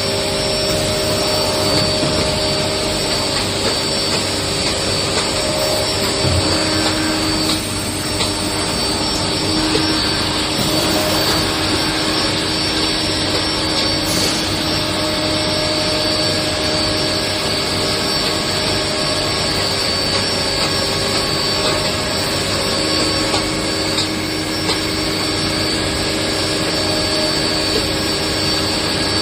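Hermle U-1130 five-axis CNC machining centre running: a steady mechanical hum with a high whine and a few lower held tones that come and go.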